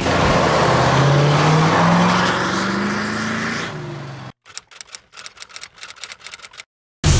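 Vintage Ford Bronco's engine revving as it accelerates away, its pitch rising, then cutting off abruptly after about four seconds. A quick run of clicks follows for about two seconds, then a sudden loud hit near the end.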